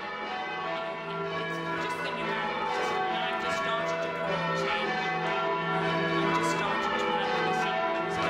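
Church tower bells rung in changes: one bell after another struck in a steady, even sequence, each ringing on and overlapping the next.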